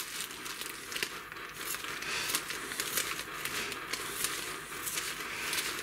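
Plastic zip-lock bag crinkling and rustling in the hands, with many small irregular crackles, as a lump of sheep tail fat is gripped through it.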